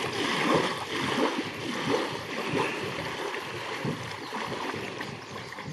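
Shallow river water sloshing and splashing against a truck inner tube with a person standing on it, in quick irregular laps.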